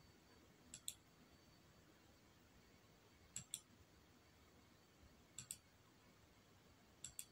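Four faint double clicks of a computer mouse button, each a quick press-and-release pair, about two seconds apart, over near-silent room tone; the clicks advance the slides of a presentation.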